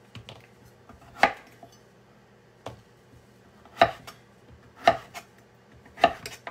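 Chef's knife slicing delicata squash into half-moon pieces, each cut ending in a sharp knock on a wooden cutting board. About five chops come roughly a second apart.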